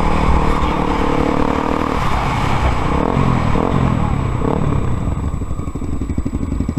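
Honda XR 250 Tornado single-cylinder four-stroke engine running under the rider, its note shifting about two seconds in and settling into a lower, even beat near the end.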